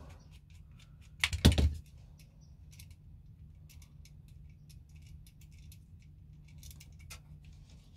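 Scattered light metallic clicks and ticks of a 2 mm Allen key and small parts being worked loose from an airsoft gearbox's selector mechanism, with a louder clatter about a second and a half in.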